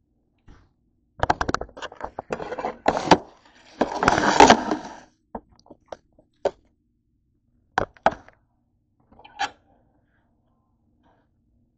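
Kitchen handling noises: a run of knocks, clatter and scraping as things are moved about on the counter, with a louder rustling stretch around four seconds in. Then a few separate taps on a cutting board as cucumber slices are handled.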